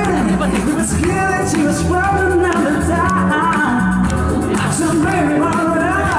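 Live band performance: a male singer sings into a microphone over a band with steady bass and regular drum beats.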